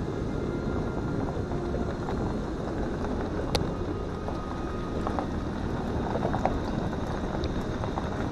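Vehicle driving: steady low road and engine noise, with a few light knocks and clicks, the sharpest about three and a half seconds in.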